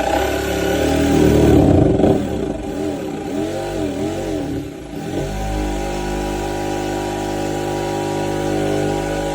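Jigsaw running and cutting a notch in a butcher block wooden countertop. Its motor pitch dips and wavers as the blade bites into the wood for the first few seconds, then holds steady.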